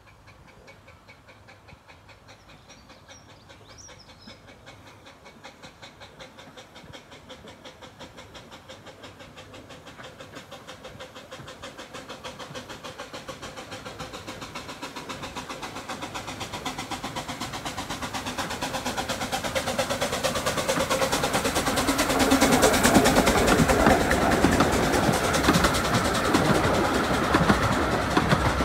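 Bure Valley Railway No. 8 John of Gaunt, a 15-inch gauge steam locomotive hauling a heavy ten-coach train, approaching and passing. Rapid, even exhaust beats grow steadily louder and are loudest about three-quarters of the way through as the engine goes by. Near the end the coaches roll past with a clickety-clack.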